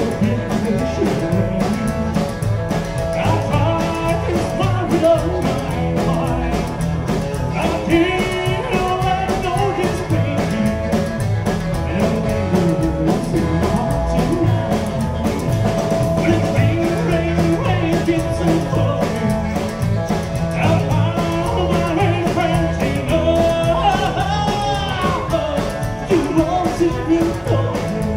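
Live rock and roll band playing: acoustic guitar, upright bass, drum kit and electric guitar, with a man singing lead.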